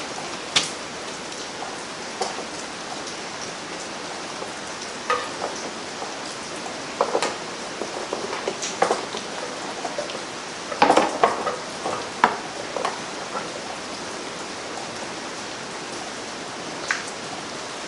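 Plastic air cleaner housing being handled and fitted onto a Predator 670 V-twin engine: scattered clicks, taps and knocks of plastic against the engine, busiest in the middle of the stretch, over a steady hiss.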